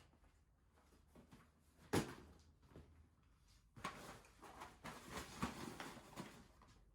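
Things being handled: one sharp knock about two seconds in, then a run of rustling and small clattering knocks.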